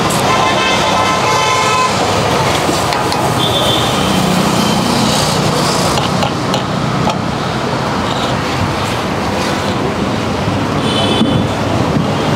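Steady street traffic noise with car horns sounding: a long honk in the first two seconds, then shorter toots about four seconds in and again near the end.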